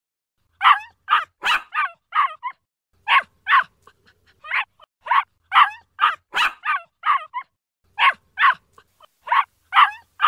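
A dog barking in runs of short, sharp barks, about two a second, with brief pauses between the runs.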